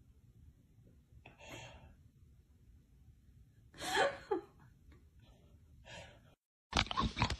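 Soft breathy vocal sounds, the loudest a short gasp about four seconds in. Near the end a much louder burst of sound begins suddenly.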